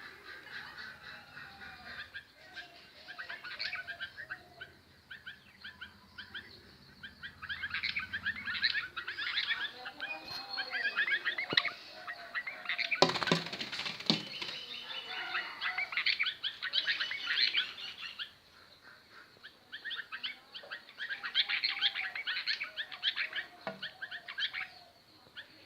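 Birds chirping in rapid, overlapping runs of short notes, with a brief rush of noise about halfway through.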